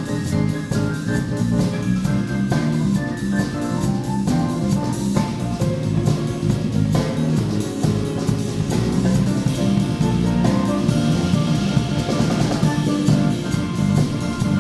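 Live jazz trio of grand piano, electric bass and drum kit playing, with constant cymbal strokes over the piano and bass lines. A brighter cymbal wash swells about eleven seconds in.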